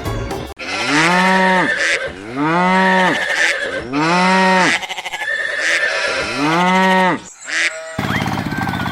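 A cow mooing four times in a row, each moo about a second long, rising and then falling in pitch. A shorter call follows, and a steady, even noise starts near the end.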